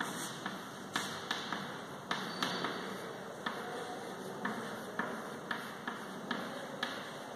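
Chalk writing on a chalkboard: irregular sharp taps and short scrapes as each letter is formed, about one or two a second, over a steady hiss.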